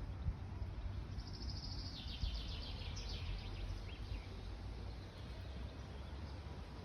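A small songbird singing one rapid trilled phrase of about two seconds, starting about a second in, stepping down in pitch halfway and ending with a falling flourish, over a steady low rumble.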